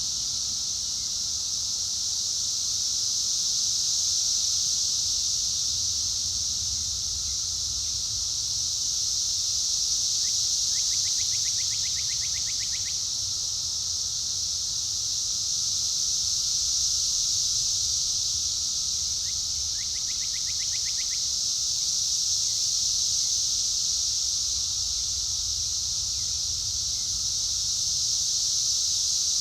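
Cicadas droning in a loud, steady, high buzz that swells and eases slowly. Beneath it a mockingbird sings faintly, with two short phrases of rapid repeated notes about eleven and twenty seconds in.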